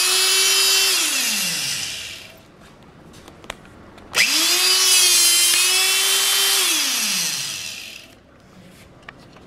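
Electric-over-hydraulic hole punch's pump motor running with a steady whine, then spinning down. It starts up again about four seconds in, runs for a couple of seconds and winds down again as the punch cycles through steel plate.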